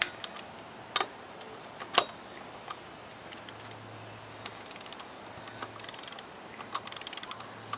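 Ratcheting torque wrench tightening lug nuts: three sharp single clicks about a second apart, then several short bursts of fast ratchet clicking.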